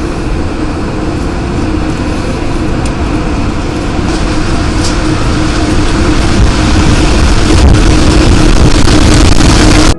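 Loud roaring wind buffeting the microphone, growing steadily louder; it starts and cuts off abruptly.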